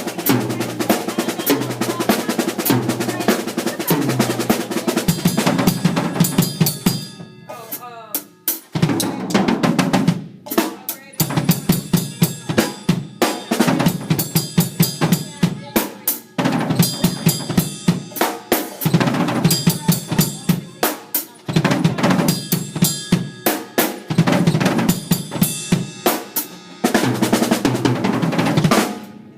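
Drum kit played with sticks: fast runs of snare and bass drum strikes and rolls, broken by short pauses a few times, and stopping near the end.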